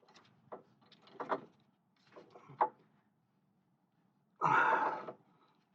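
Short metallic clinks and rattles of hand tools working on the caliper bracket bolts of a rear disc brake, followed near the end by a louder, rougher sound lasting about a second.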